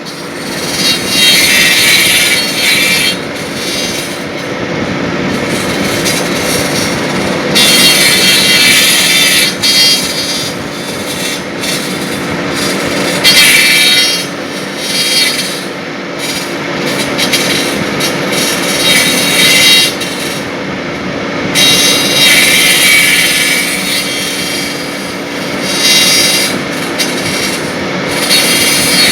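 Copying wood lathe turning a baluster: the machine runs with a steady hum while the cutter's loud high-pitched shaving noise comes and goes every few seconds as it cuts into the spinning wood.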